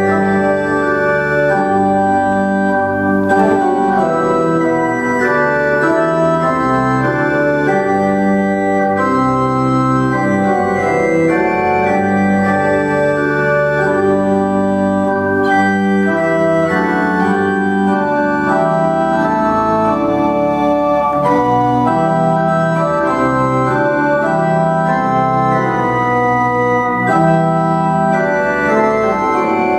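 Church organ playing a hymn in steady held chords, moving from chord to chord.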